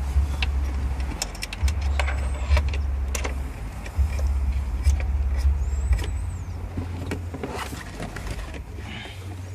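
Scattered sharp clicks and rattles from hands and a tool working wiring and plastic trim inside a car's dash, over an uneven low rumble.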